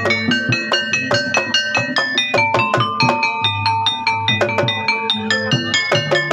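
Javanese gamelan music for a jaranan kepang show: a fast, even stream of struck, ringing metallophone notes over a drum.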